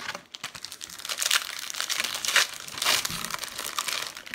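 Trading-card pack wrapper crinkling and crackling as it is pulled open and handled, with the loudest crackles about a second and a half in and again around two and a half to three seconds.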